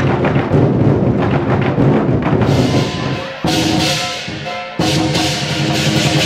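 Large Chinese drums beaten by a drum troupe, mixed with instrumental music. The level drops and jumps back suddenly twice, about halfway through and again a second later.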